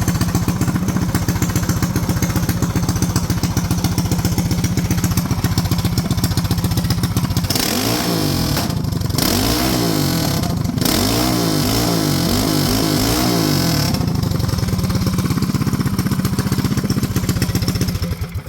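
Small go-kart engine on a Yerf-Dog kart running at a steady high speed. From about a third of the way in, its pitch rises and falls repeatedly for several seconds, then it settles back to a steady drone before cutting off suddenly.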